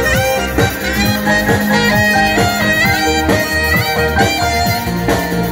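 Alto saxophone playing a sliding, bending melody over a drum kit and a bass line, in a live jazz band.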